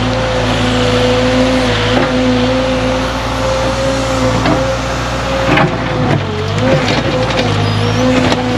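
Cat compact excavator's diesel engine running at working speed with a steady hydraulic whine as the machine digs. About six seconds in the pitch sags and wavers briefly under load, with a few knocks.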